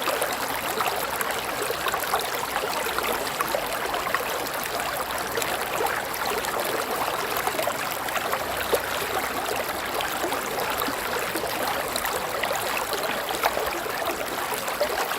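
River water flowing steadily, a continuous rushing and babbling with fine splashy crackle.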